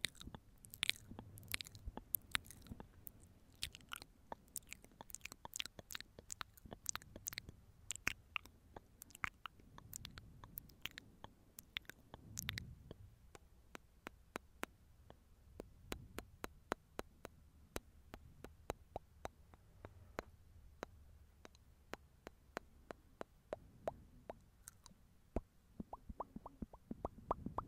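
Close-miked ASMR mouth sounds: many quick, sharp wet clicks, rapid and dense for the first half, then sparser.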